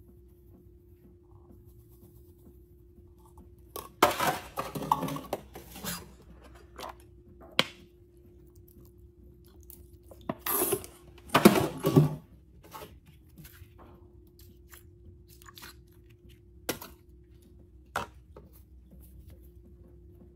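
Liquid poured from a bottle onto a pile of candies and gel beads in a toilet bowl, splashing and crackling in two bursts, about four seconds in and again about ten seconds in. A few sharp clicks fall between and after the bursts.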